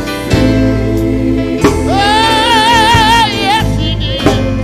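Gospel-soul band playing live, with electric bass and drum kit under a lead vocal. About two seconds in, a singer holds one long note with vibrato, and a few sharp drum hits punctuate the band.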